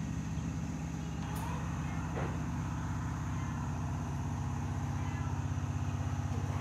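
A low, steady machine drone with a fast, even pulse, getting a little louder near the end.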